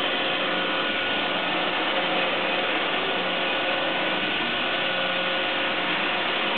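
Sharp SV-2412 CNC vertical machining center running its program in dry-run mode, its spindle turning at about 3000 RPM without cutting: a steady whir with several held tones over a hiss.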